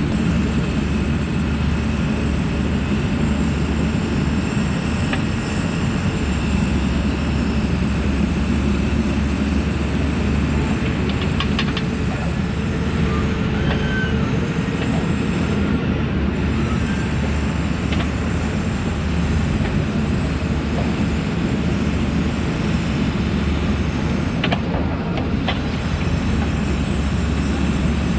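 JCB 3CX backhoe loader's diesel engine running steadily under digging work, with a few short metallic knocks from the machine at about eleven seconds in and near the end.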